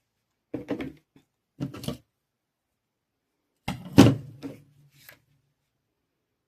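A few knocks and clattering bumps of objects being handled and set down on a hard surface, in four short clusters; the loudest comes about four seconds in and is followed by a brief low ring.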